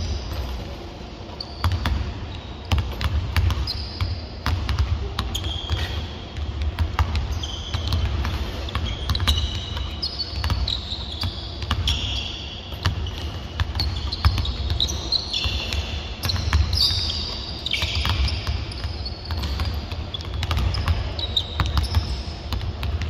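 Several Molten basketballs bouncing on a hardwood court, irregular thuds and knocks echoing in a large arena, with scattered short high sneaker squeaks.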